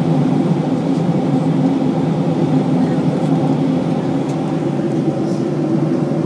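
Steady drone of an airliner cabin in cruise: the jet engines and the rush of air over the fuselage make an even hum with a few faint steady tones.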